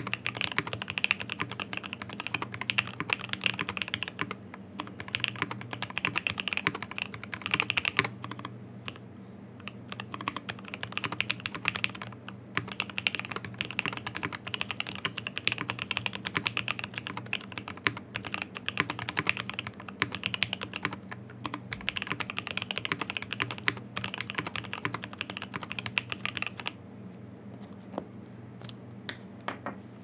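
Fast typing on a Typ65+ prototype custom mechanical keyboard (FR4 plate, gasket and top mount, OP Black switches on MP68 springs, GMK keycaps). Dense runs of keystrokes are broken by a couple of brief pauses, thinning to a handful of isolated key presses near the end.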